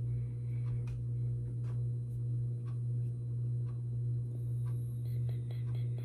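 A steady low hum, with faint scattered small clicks and taps that come more often near the end, as dried seeds are set down one by one on paper.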